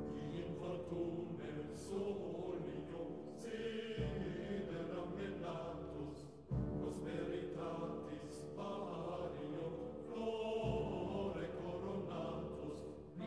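Orchestral background music with sustained chords and a couple of deep drum hits, about four and six and a half seconds in.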